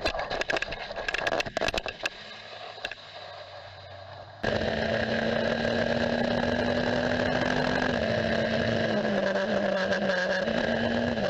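Onboard sound of a single-seater racing car crashing: a rapid run of knocks and scrapes, then a quieter hum. About four and a half seconds in, a sudden switch to another open-wheel racing car's engine running steadily at speed, dropping in pitch in two steps near the end as the car slows and changes down.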